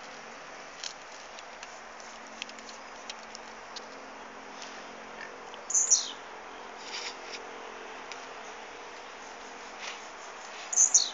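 Blue-black grassquit (tiziu) calling: two short, high notes that drop in pitch, about six seconds in and again near the end, with faint scattered ticks in between.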